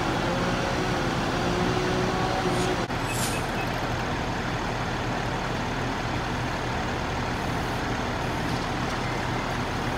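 Fire trucks' diesel engines running steadily at a fire scene, a constant low rumble, with a brief high hiss about three seconds in.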